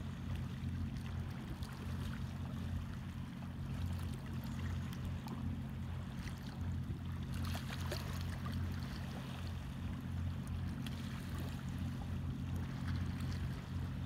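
Small waves lapping and trickling over the stones at the water's edge, over a low steady rumble.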